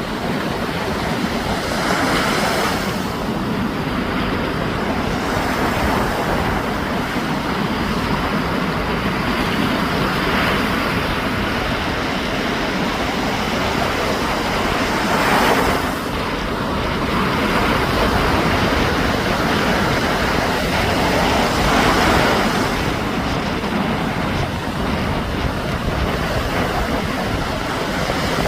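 Sea waves breaking on a beach: a steady rush of surf that swells up with each breaker every several seconds.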